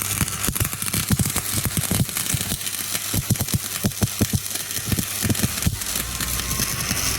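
Stick (arc) welding electrode burning: a steady hiss with dense, irregular crackling and spitting from the arc.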